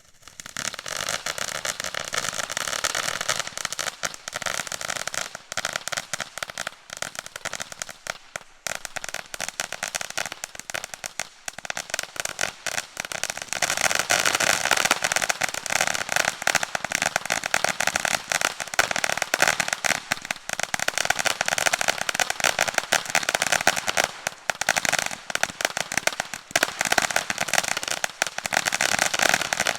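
Spinning consumer firework going off: a dense, unbroken stream of crackling pops that starts suddenly and grows louder about halfway through.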